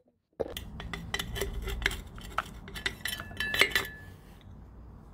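A metal trowel and soil clinking and scraping against a glass jar as the jar is filled with soil. A quick run of sharp clinks has a brief glassy ring about three and a half seconds in, and it stops near the four-second mark.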